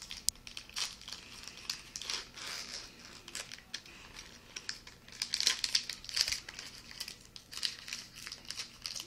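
Foil wrapper of a Pokémon card booster pack being crinkled and torn open by hand, an irregular crackling that is thickest a little past halfway.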